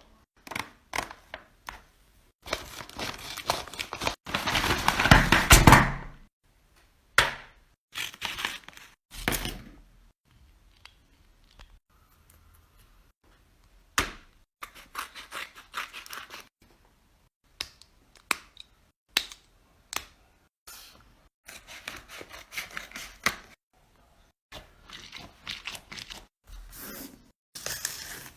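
Fidget toys being handled close up: scattered sharp clicks and taps between stretches of scratchy, crinkly handling noise. The loudest stretch is about four to six seconds in, and there is a nearly silent gap around ten to fourteen seconds.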